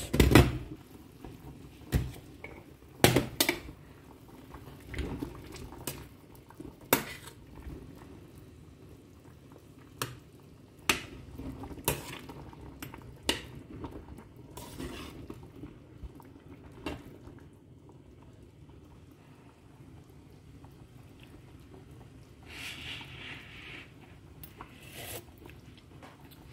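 A glass pot lid clatters as it is lifted off a stainless steel pot, and then a metal spoon knocks and clinks against the pot's side about a dozen times while stirring boiling fish soup. Soft bubbling from the boil runs under the knocks.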